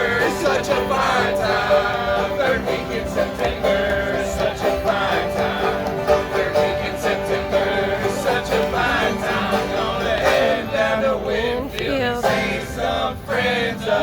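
Bluegrass string band playing live, with a quick run of plucked notes over sustained chords.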